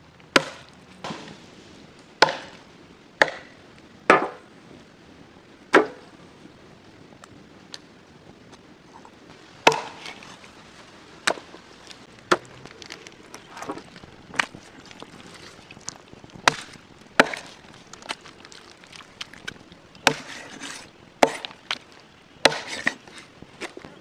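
A large knife chopping raw chicken into big pieces on a wooden log block: about two dozen sharp chops at irregular intervals, some single and some in quick pairs.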